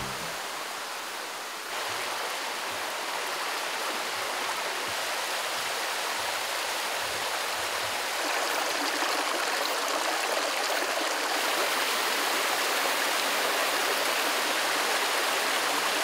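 Mountain stream running over rocks in small cascades, a steady rushing and splashing of water. It gets a little louder about two seconds in and again about halfway through.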